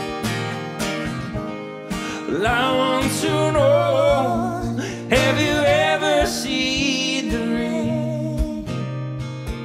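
Acoustic guitar strumming chords, with a woman's singing voice coming in about two seconds in, in long phrases with wavering, sliding pitch.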